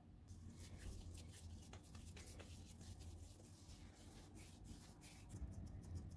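Faint rubbing and light scraping of hands working soft cookie dough on a silicone baking mat, in many short strokes that come in a quicker run near the end.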